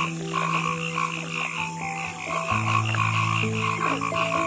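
A chorus of frogs calling in rapid repeating pulses, over soft background music with long held notes.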